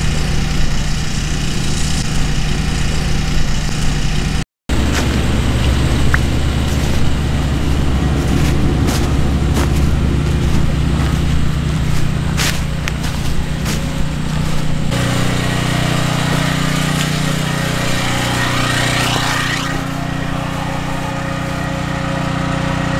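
Pickup truck engines idling, a steady low hum. It cuts out for a moment about four and a half seconds in, and about fifteen seconds in it changes to a different steady hum.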